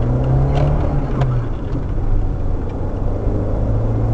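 Car engine and road noise while driving: a steady low drone with a slight rise and fall in pitch in the first second and a few faint clicks.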